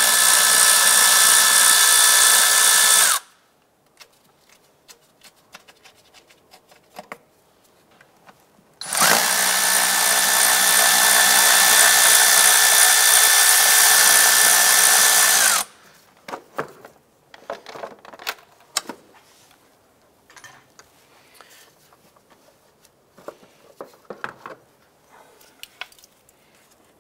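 Cordless electric ratchet spinning an 8 mm socket to back out the fasteners of a plastic air box cover, in two steady motor runs: a few seconds at the start, then about seven seconds from roughly nine seconds in. Light clicks and knocks follow as the cover is lifted off.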